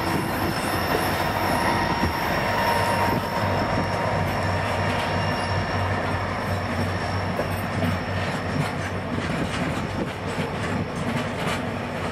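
Open freight wagons rolling past close by: a steady rumble of steel wheels on rail, with a thin high wheel squeal in the first few seconds, then a run of clicks from wheels crossing rail joints toward the end.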